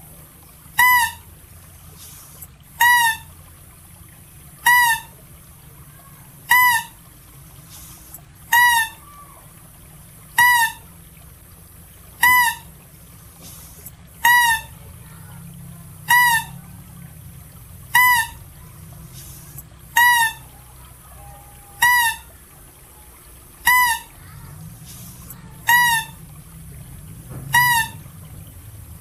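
Philippine mouse-deer (Balabac chevrotain) calling sound: a short, high call that rises and falls in pitch, repeated steadily about every two seconds, fifteen times over.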